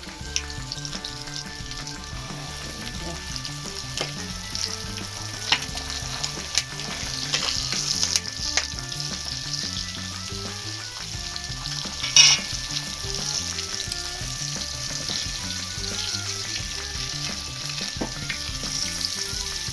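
Pieces of lambuka (mahi-mahi) frying in hot oil in an iron pan over a wood fire, a steady sizzle throughout. A few sharp crackles cut through it, the loudest about twelve seconds in.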